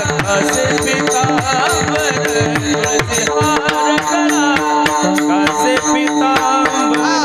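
Kirtan music: held drone tones under a wavering melodic line, with hand-drum strokes whose low notes slide downward and fast, steady clicks of small hand cymbals keeping the rhythm.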